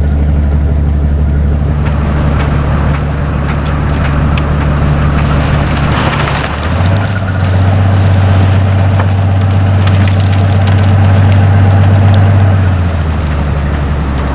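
Rail rotary snow blower cutting through hard-packed snow: a loud, steady engine drone under a constant rushing, crunching noise of snow being chewed up and thrown. The engine note steps up in pitch about halfway through and drops back near the end.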